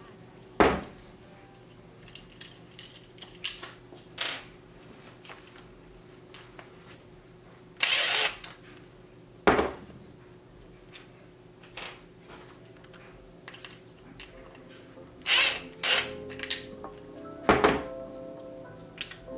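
A cordless drill-driver spins briefly about 8 seconds in, driving small T20 screws on a steering-wheel switch assembly. Sharp clicks and knocks come from the switch parts being handled, a few of them between 15 and 18 seconds, over faint background music.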